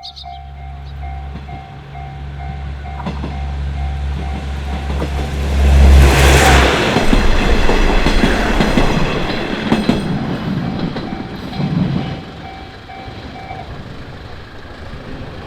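Japanese level crossing's warning bell dinging in a steady repeating rhythm while an electric train approaches and passes, loudest about six seconds in. A low steady hum sits under the first half and stops as the train goes by; the bell stops near the end.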